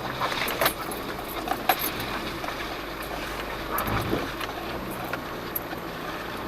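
Jeep Cherokee Trailhawk crawling slowly over a rocky trail: a low, steady engine hum with scattered knocks and rattles as the tires and body work over rocks, a cluster of them in the first two seconds and another about four seconds in.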